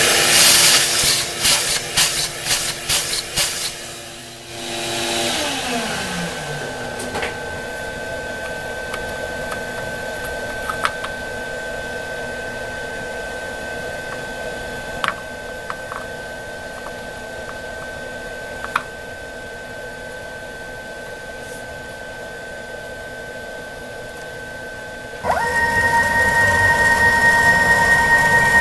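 A shop vacuum sucking up brass chips, loud and rushing with the chips rattling through it. About five seconds in it is switched off and winds down with a falling pitch. A steady high whine from the CNC mini mill follows, until a louder motor starts up near the end.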